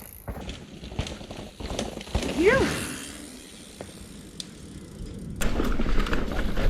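Mountain bike riding down a dirt trail: tyres on dirt, with the chain and frame rattling and knocking over bumps. A louder steady rush of rolling noise begins about five seconds in, and a rider calls out once near the middle.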